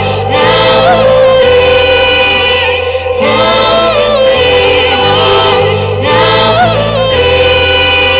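Live group music: several voices singing long held notes in harmony over a bass line that changes note every second or so.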